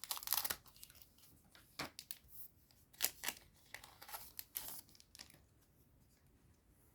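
A foil trading-card booster pack being torn open and its wrapper crinkled: a run of short ripping and crackling noises that stop about five and a half seconds in.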